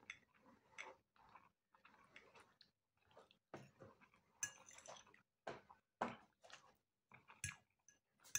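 Soft, irregular chewing and mouth sounds of a person eating pasta and fried sausage, with small clicks of a metal fork against the plate.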